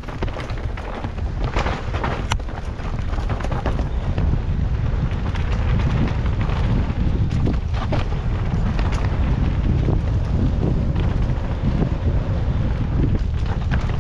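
Wind buffeting the microphone of a mountain bike descending a dirt forest trail at speed, with the clatter of the bike's tyres and frame over dirt and roots. The rumble grows louder a few seconds in.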